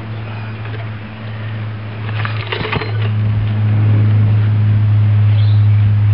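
Villiers Mk 15 small stationary petrol engine running at a steady pitch, getting louder about three seconds in and then holding there. There is a brief rattle about two and a half seconds in.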